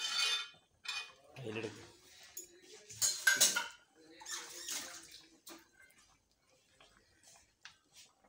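Metal spoon and ladle scraping and clinking against an aluminium kadai while stirring a thick, wet fish curry, in irregular strokes; the loudest scrape comes about three seconds in, with a few light clicks near the end.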